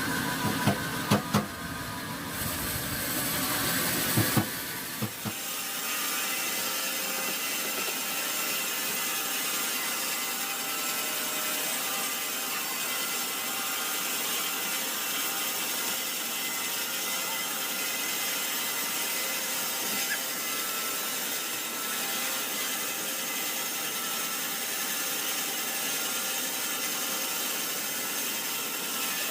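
Sawmill saw cutting through a large, hard teak log: a steady, even sawing noise with a held ringing tone, after a few sharp knocks in the first five seconds.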